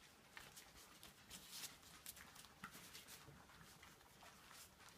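Litter of cocker spaniel puppies eating together from a shared feeding dish: a faint, irregular patter of small lapping smacks and clicks.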